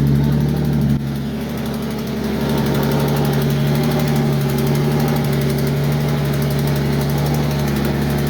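Car engine idling steadily, dipping slightly in level about a second in and then settling back.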